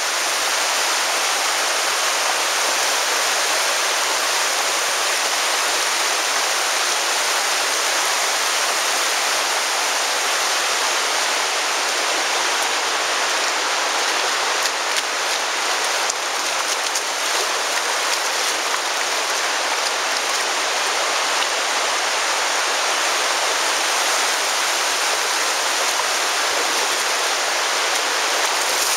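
The Virgin River rushing and splashing over rocks in the narrow canyon, a steady, even water noise.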